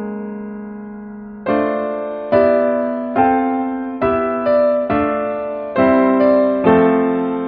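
Background music on a piano-like keyboard: a held chord fades out, then new chords are struck slowly and evenly, a little under once a second.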